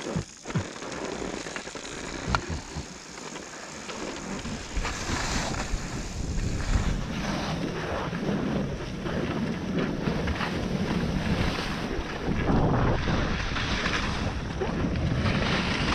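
Skis sliding over snow, a hiss that grows louder as the skier picks up speed about four seconds in, with wind buffeting the camera's microphone. A few light clicks near the start.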